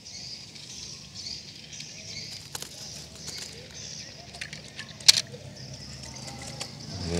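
A plastic toy truck dropped into a plastic basket, a single sharp clack about five seconds in, with a fainter click earlier, over a faint outdoor background.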